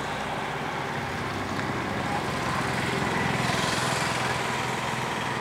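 A motor vehicle's engine running steadily, with a rushing hiss that swells and fades about three to four seconds in.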